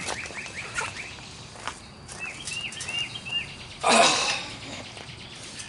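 Outdoor yard ambience with a bird calling in short, quick repeated chirps, two runs of them, and a brief loud rushing noise about four seconds in.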